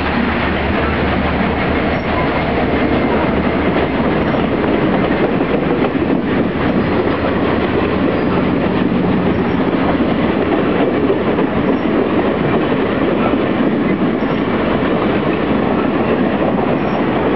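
Union Pacific passenger cars rolling past close by: a loud, steady rumble and clatter of steel wheels on the rails. For the first several seconds a low engine hum sounds from the diesel locomotive at the head of the cars as it goes by, then fades.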